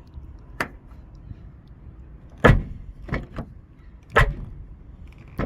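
Rear car door of a Volkswagen Virtus being shut, fitted with rubber door dampers meant to soften and quiet the closing: two solid thuds about a second and a half apart, with lighter knocks before, between and after.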